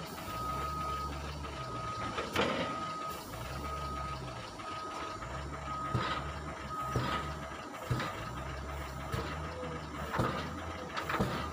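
Wheel loader's diesel engine rising and falling in a regular cycle as its bucket pats down a load of stone chips in a lorry bed, with several thuds of the bucket striking the load. A warning beeper sounds about once a second for the first two-thirds.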